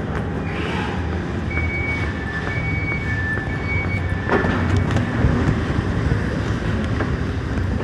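Passenger train interior rumbling steadily while the door-closing warning beeps, alternating high and low for about three seconds. A thump follows, and the rumble grows a little louder after it, as when the train pulls away.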